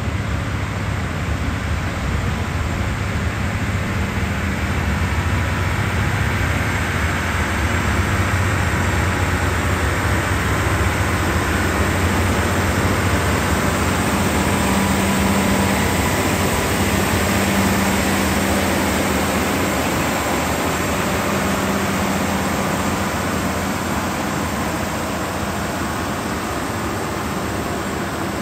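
Diesel engine of a cog railway locomotive running steadily under load as it pushes a coach up the incline, a deep even drone that swells slightly in the middle.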